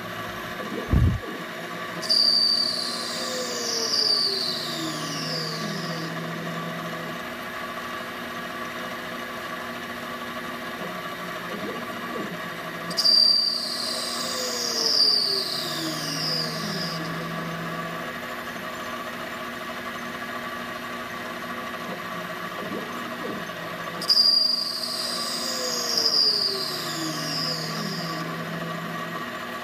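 CNC lathe turning a Delrin rod, its spindle running with a steady hum while a carbide insert cuts the dome-shaped end. Three times, about 11 seconds apart, a whine falls in pitch and then holds as the tool sweeps the dome profile, with a short thump about a second in.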